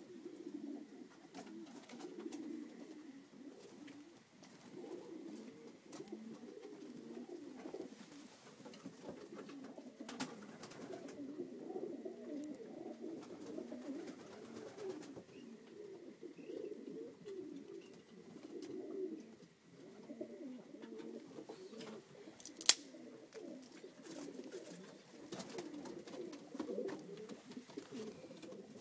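A loft full of racing pigeons cooing continuously, many low overlapping coos at once. A single sharp click sounds about three-quarters of the way through.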